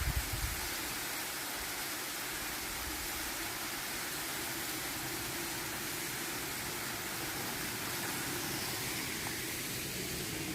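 Waterfall rushing in a steady, even roar of falling water, with a few brief low bumps at the start.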